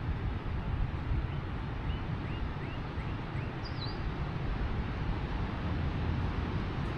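Wind buffeting the microphone, a steady low rumble. About two seconds in, a bird gives a short run of faint, quick rising chirps.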